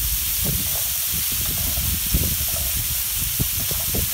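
Diced chicken and onions sizzling in olive oil on a Camp Chef flattop griddle on low heat, a steady frying hiss, with a few soft taps as onion pieces are dropped onto the plate.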